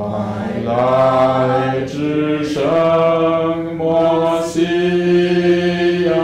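A small group of voices singing a slow Mandarin Advent hymn to the Messiah, each syllable drawn out over a second or more, with short breaks between notes.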